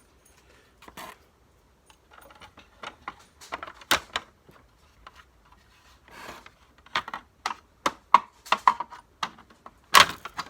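Irregular clicks and knocks of a flathead screwdriver pushing out the plastic hood tabs of a Hoover WindTunnel upright vacuum and working the hood loose, with a sharp knock about ten seconds in.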